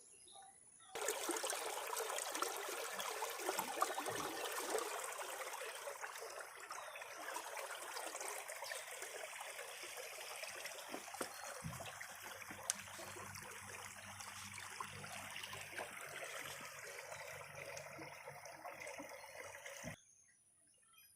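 Water from a high-pressure tube well pump gushing out in a steady, rushing flow. It starts abruptly about a second in and cuts off suddenly near the end.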